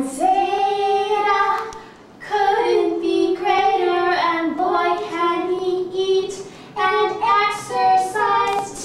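A woman and a young girl singing together unaccompanied, in long held notes with a short pause about two seconds in.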